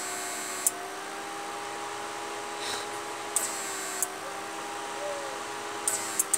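A homemade 12 V-to-5000 W fish-stunning inverter running under a load of incandescent bulbs: a steady electrical hum with a few clear tones, broken by several short, sharp clicks.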